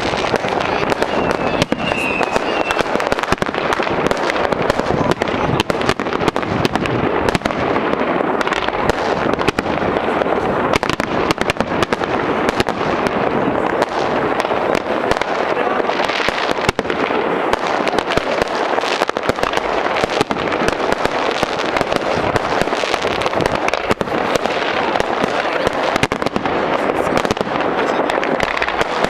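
Fireworks display: a dense, unbroken barrage of crackles and bangs, many sharp reports a second.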